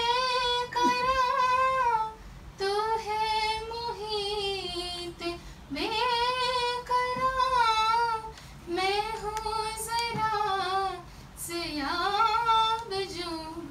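Young woman singing an Urdu ghazal solo, without instruments, in long drawn-out phrases whose notes glide and waver, with short breaths between phrases.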